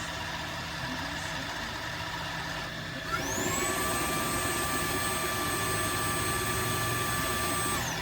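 Tineco Floor ONE S5 wet-dry vacuum running its self-cleaning cycle: a steady machine hum, then about three seconds in the suction motor spins up with a rising whine, holds a steady high pitch, and winds down near the end.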